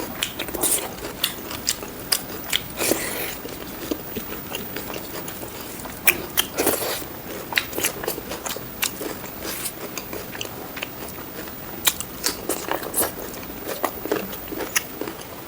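Close-miked chewing and biting of a person eating fried pork with rice. It comes as irregular crisp crunches and wet mouth clicks.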